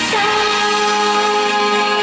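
Female singer holding one long note into a handheld microphone over live band accompaniment, sliding briefly down into the pitch just after it begins.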